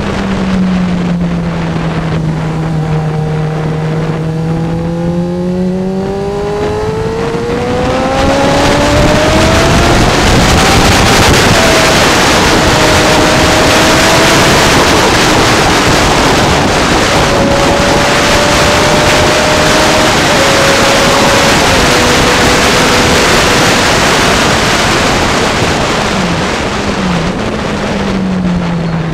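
Sport motorcycle engine heard onboard at a track: the revs climb steadily through the gears for the first several seconds, then wind rushing over the microphone drowns most of the engine at high speed. Near the end the engine note drops, with two quick throttle blips of downshifting under braking.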